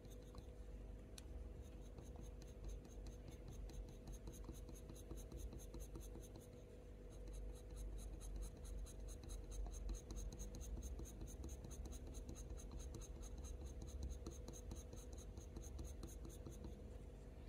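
Faber-Castell Polychromos colour pencil scratching across heavy hot-press watercolour paper in rapid, even back-and-forth strokes, several a second, pressed hard to build up dark fur shading. The sound is faint.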